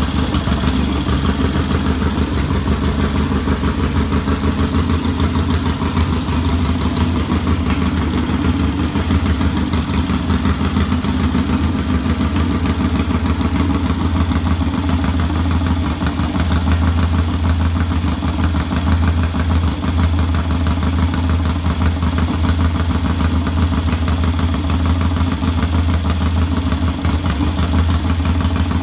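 1966 Triumph T100's parallel-twin engine idling steadily, with an even, rapid beat of exhaust pulses.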